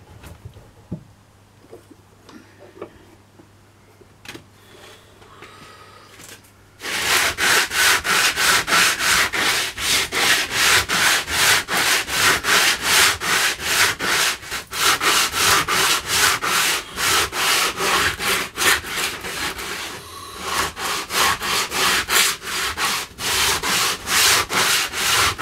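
Pallet-wood boards being hand-sanded with coarse 60-grit sandpaper. A few light handling clicks at first, then, about seven seconds in, brisk back-and-forth rubbing strokes start, about three a second.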